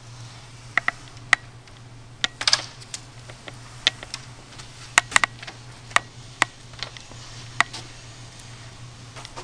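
Scattered, irregular sharp clicks and taps, a dozen or so, with a busier rattling cluster about two and a half seconds in, over a steady low hum.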